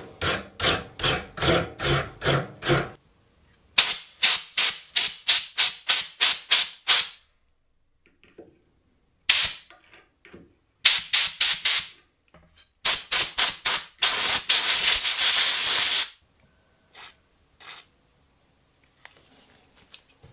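Hand wire brush scrubbing rust off the steel frame of an antique Bulldog revolver, in quick back-and-forth strokes of about three a second. The strokes come in several spells separated by short pauses, and a couple of light knocks follow near the end.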